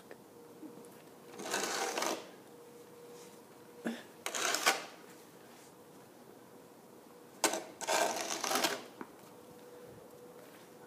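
Plastic-bladed snow shovel scraping along a paved driveway in three strokes, each about a second long. The second and third strokes start with a sharp knock as the blade meets the pavement.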